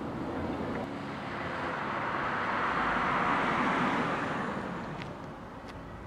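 A car passing by on the road, its tyre and engine noise swelling and then fading away over a few seconds.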